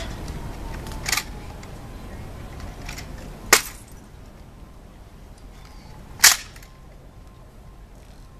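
Three sharp slaps and clacks of an M14 rifle being handled during a ceremonial rifle inspection, as gloved hands strike the rifle and snap it into position. The first, about a second in, is softer; the other two are loud and come about two and a half seconds apart.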